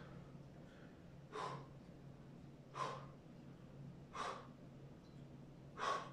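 A man breathing out hard with the effort of doing push-ups: four short, sharp breaths about a second and a half apart, over a faint steady hum.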